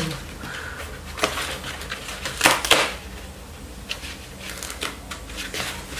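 Hands pressing and handling EVA foam craft pieces while gluing a leg on. Scattered soft rustles and a few short sharp crackles, the clearest about two and a half seconds in, over a steady low hum.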